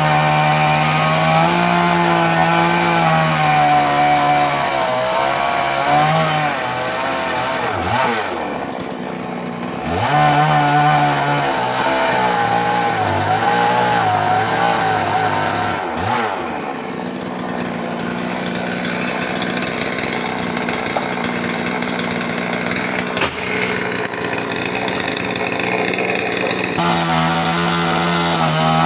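Chainsaw cutting into a coconut tree trunk, its engine running at high revs with the pitch wavering under load. It drops back twice, about a third and about halfway through, and revs up again each time.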